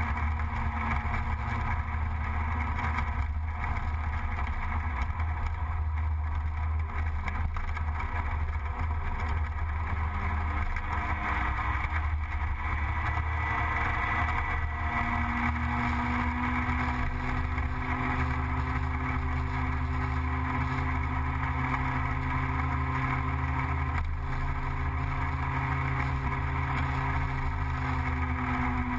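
Gilera Runner 180 scooter's two-stroke single-cylinder engine running while riding at road speed, with road and wind noise. The engine note shifts with the throttle and climbs a little about halfway through.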